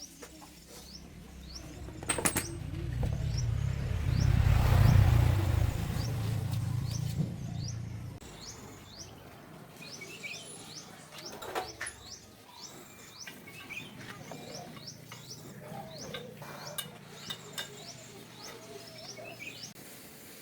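Small birds chirping over and over in short, high, falling notes through the second half. Before that, a low rumble swells up and fades away within the first several seconds, and a few sharp knocks come at intervals.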